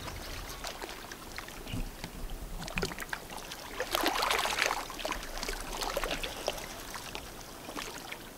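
Riverbank ambience while a heavy rod is fought from shore: a steady wash of wind and river water with scattered small clicks and knocks, and a louder rush of noise about four seconds in.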